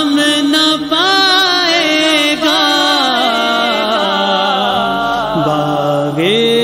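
Wordless devotional vocal chanting: a held melody that slides smoothly from note to note over a steady lower drone, with a marked upward shift about six seconds in.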